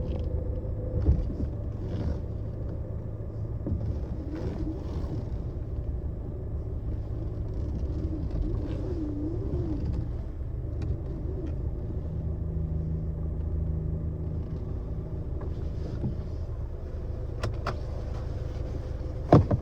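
Land Rover Discovery Sport driving, with a steady low road and drivetrain rumble and short intermittent rattles and knocks; a sharper knock comes near the end. These rattles are the unexplained noise the owner is chasing.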